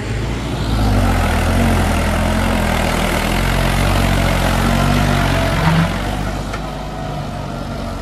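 Massey Ferguson 3085 tractor's diesel engine pulling hard as it drives close past, skidding a heavy log behind it. It grows louder about a second in and eases off after about six seconds as it moves away.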